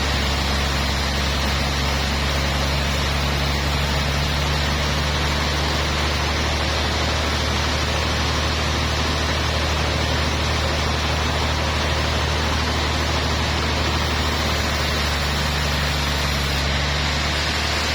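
Sawmill machinery running steadily: a constant low engine hum with an even noisy hiss over it.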